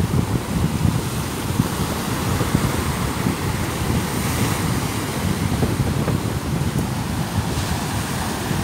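Wind buffeting the microphone over the steady wash of breaking ocean surf.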